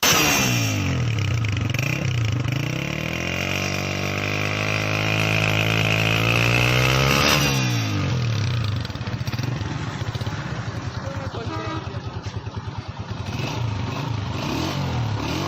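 Honda CG 125 single-cylinder four-stroke motorcycle engine being revved. It falls off a rev at first, climbs again and holds a steady high rev for a few seconds, then drops back about seven and a half seconds in and settles to a pulsing idle.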